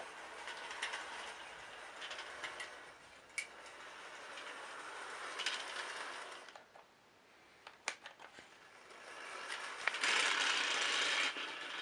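Bachmann Spencer electric model locomotive running on its track, the motor whirring with small clicks from the wheels. It falls silent for about two seconds past the middle, then runs again, louder near the end.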